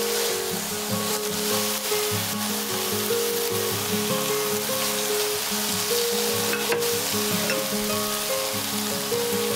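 Shishito peppers and dried anchovies sizzling as they are stir-fried in a frying pan with a wooden spoon, with a click of the spoon about seven seconds in, over light background music.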